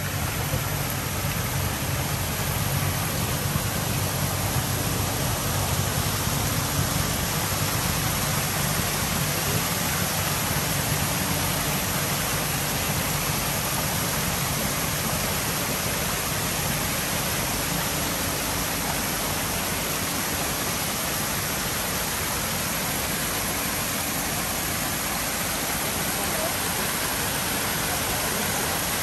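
Water from a small rock cascade fountain spilling over stone tiers into pools, a loud, steady rush of falling water.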